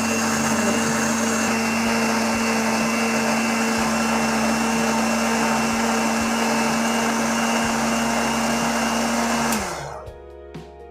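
Electric mixer grinder running steadily, blending a cold coffee mix of milk, chocolate ice cream and ice cubes in its jar. About nine and a half seconds in it is switched off and its whine falls away as the motor spins down.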